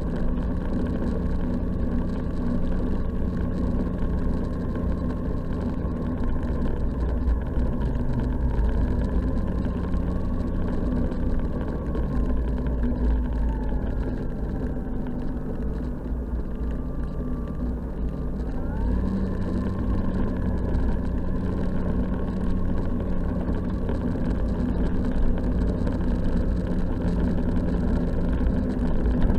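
Snowmobile engine running steadily as the machine travels along a snowy trail. Its pitch sags over several seconds near the middle, then climbs again quickly as it speeds up.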